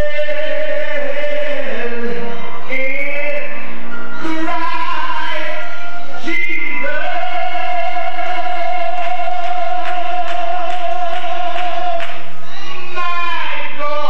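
A man singing a gospel song into a microphone, his voice gliding between notes, then holding one long note for about five seconds in the middle.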